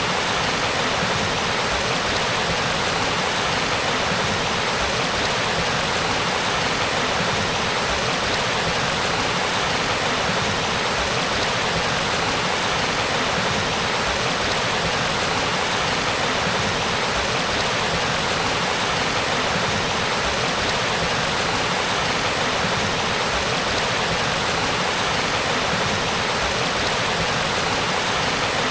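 Shallow spring-fed mountain stream babbling over rocks, a steady, even rush of water with no pauses.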